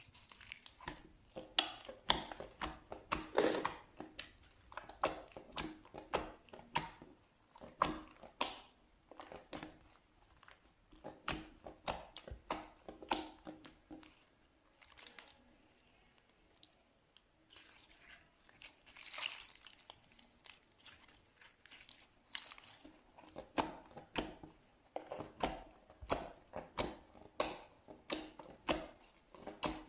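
Slime being squeezed and pressed by hand, giving irregular clusters of crackling, popping clicks. There is a quieter stretch about halfway through.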